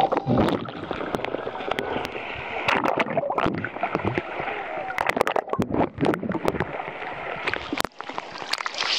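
Seawater sloshing and splashing over a camera held at the water's surface, with many scattered sharp clicks. There is a louder splash near the end.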